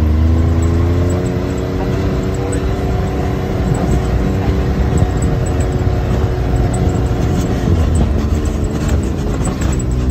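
Side-by-side UTV engine running under way over a dirt trail, with the low rumble of the ride beneath it. Its pitch climbs slightly over the first couple of seconds, holds steady, then wavers up and down near the end.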